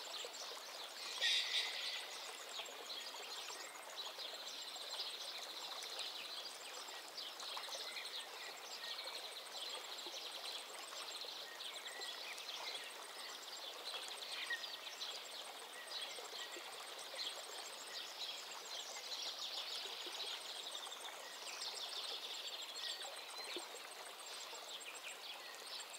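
Outdoor bird ambience: birds chirping and trilling continuously over a steady hiss like flowing water, with a louder burst of calls about a second in.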